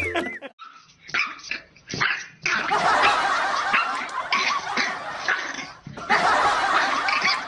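French bulldog puppy yapping and barking in short repeated bursts at its own reflection in a mirror.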